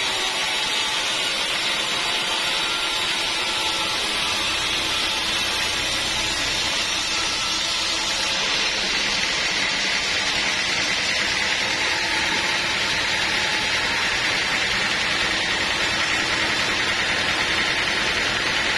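Sawmill saw running with an even, hissing mechanical noise that holds steady throughout.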